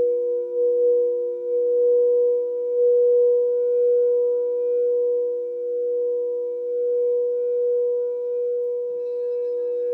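Two frosted crystal singing bowls ringing together as long, steady tones, one lower and one higher, with faint higher overtones and a slow swell and fade in loudness. Near the end a faint higher ringing joins them.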